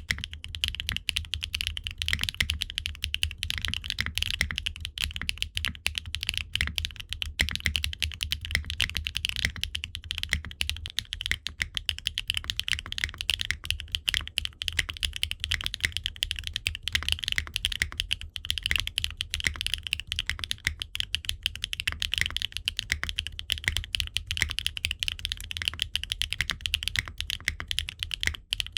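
Continuous fast typing on a mechanical keyboard with HMX Meteor linear switches: a Qwertykeys Neo65 Core Plus, gasket-mounted in an aluminium case with no foam, fitted with ABS double-shot Cherry-profile keycaps. It makes a dense, unbroken stream of bright keystroke clacks.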